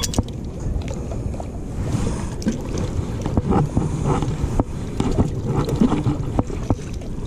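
Wind rumbling on the microphone over water running from a tap. From about two seconds in there is a scatter of small clicks and scrapes as a fresh mackerel is rinsed and cleaned by hand.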